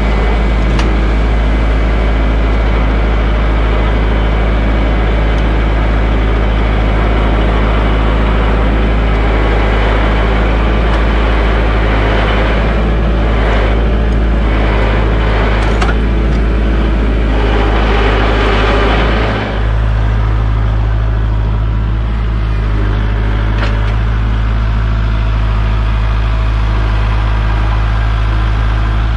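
Kubota compact tractor's diesel engine running steadily, close to the microphone. A rougher, noisier stretch in the middle eases about two-thirds of the way through.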